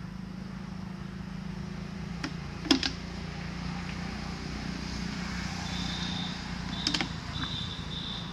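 Plastic water bottle set down on dry ground and later picked up: a few sharp clicks and crinkles, the loudest a little under three seconds in, over a steady low hum. A high chirp in short pulses comes in over the last couple of seconds.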